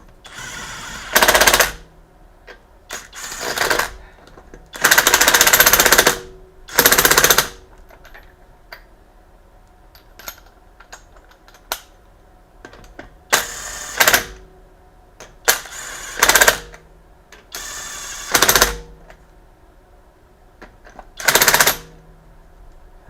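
Impact wrench hammering on the wheel's lug nuts in about eight short bursts, several starting at a lower speed before hammering at full.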